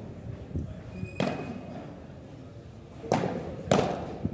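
Padel ball being struck with padel rackets during a rally: sharp pops with a short ring, one about a second in, then three in quick succession near the end.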